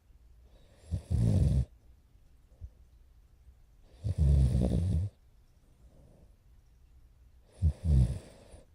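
French bulldog puppy, about four months old, snoring loudly in its sleep: three snores about three seconds apart, with quiet breathing between them.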